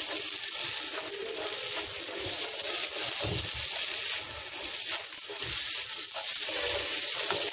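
A spatula stirring and scraping crumbled idli upma in a nonstick pan, over a steady sizzle of frying.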